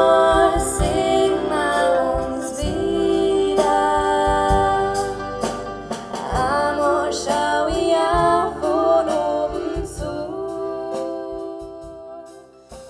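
Two female voices singing a song in harmony, live, accompanied by a plucked concert harp and accordion; the music fades out near the end.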